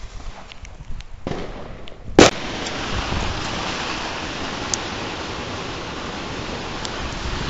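A single sharp firecracker bang about two seconds in. It is followed by a steady hiss, with faint crackles of fireworks going off around the neighbourhood.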